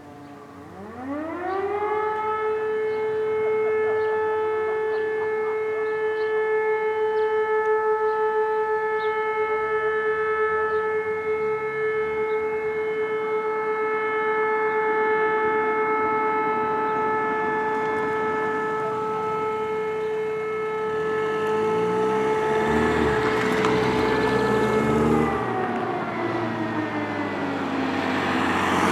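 Fire-brigade alarm siren winding up over about two seconds to a single steady tone, holding it for over twenty seconds, then winding down near the end. It is sounding to call out the volunteer firefighters. Some broader noise swells under it as it winds down.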